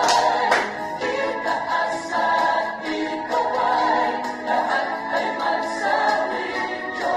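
A song with singing plays throughout, with a few sharp beats in the first second.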